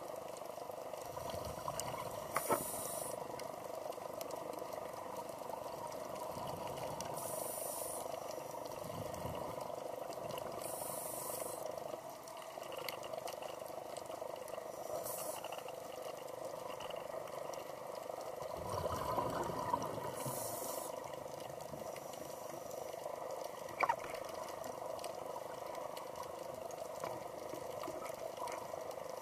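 Scuba regulator breathing underwater: hissing bursts of exhaled bubbles about every four seconds, with low rushing breaths in between, over a steady underwater hiss.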